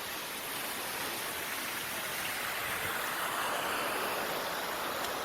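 Steady rush of falling and splashing water from the pools and water features of an aquapark.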